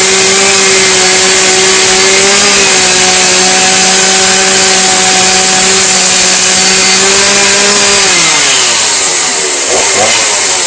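Power saw running steadily at high speed, then winding down with a falling pitch about eight seconds in.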